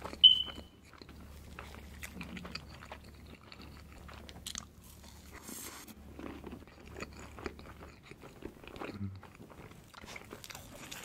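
Close-miked mouth sounds of a person chewing and eating syrup-soaked mille crêpe cake, with many small wet clicks and smacks. There is one sharp tap with a brief high ring just after the start.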